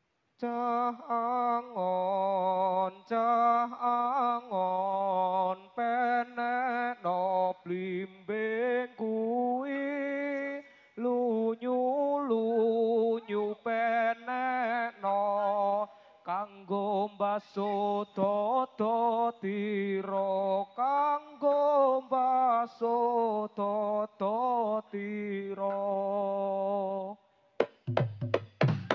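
A solo voice sings a slow, unaccompanied Javanese melody in phrases broken by short pauses, with wavering ornaments on the held notes. Near the end, sharp strokes from the gamelan's drum come in.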